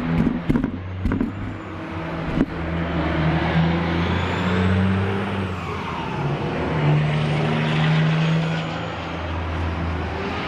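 Road traffic going by, the engine hum of passing cars and trucks swelling and fading. A few sharp knocks come in the first couple of seconds.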